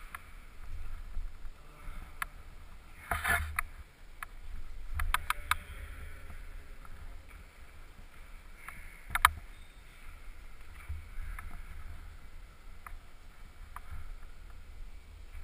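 Climbing noise heard through a helmet-mounted camera: scattered knocks and scrapes of hands and shoes on the wall's holds, over a low rumble of rubbing against the camera. A cluster of knocks comes about three seconds in and the sharpest single knock about nine seconds in.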